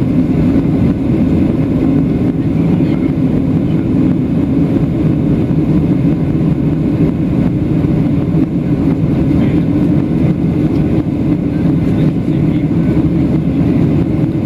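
Steady low drone of a Boeing 737-700 in flight, heard inside the passenger cabin: the CFM56-7B turbofan engines and the airflow over the fuselage blending into an even rumble.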